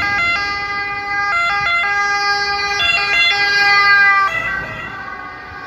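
Ambulance two-tone siren, switching between a high and a low note as the ambulance drives past. Near the end it drops slightly in pitch and fades as the vehicle moves away.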